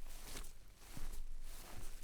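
Bare feet walking over grass: soft rustling steps at a slow walking pace.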